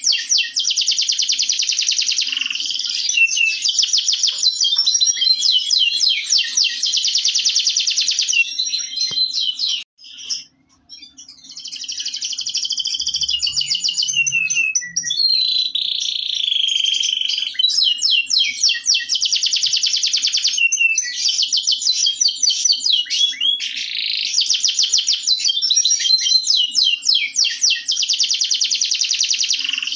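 Local canary (kenari lokal) singing a long, loud song of fast trills and rapidly repeated notes, breaking off briefly about ten seconds in before resuming.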